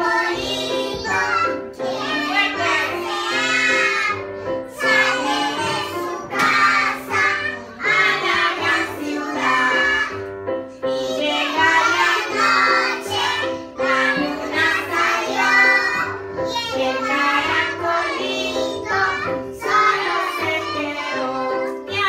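A woman and young children singing a children's song together, accompanied by an electronic keyboard playing held chords over a repeating bass line.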